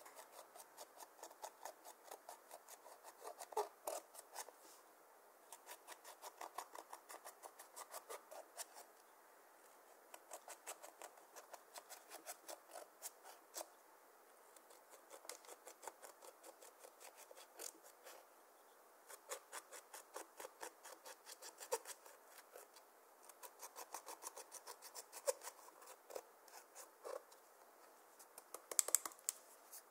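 Metal ball-tip stylus scraping and crushing pressed eyeshadow in its palette pans, in quick runs of small scratchy clicks broken by short pauses. A few louder knocks come near the end.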